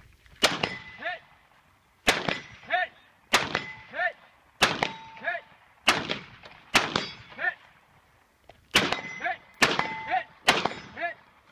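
Nine shots from a scoped AR-style semi-automatic rifle, fired singly at an uneven pace of roughly one a second. About half a second after each shot comes the ding of the round striking a distant steel target.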